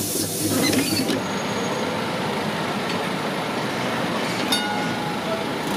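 Milan Peter Witt-type tram running on street track: a steady rolling rumble of wheels on rail. A brief bright hiss fills the first second, and a short metallic click-squeak comes about four and a half seconds in.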